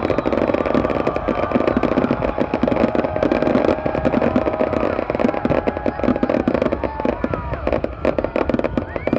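A dense fireworks barrage: continuous crackling and popping of many bursting shells, with several whistling rockets, some gliding in pitch near the end.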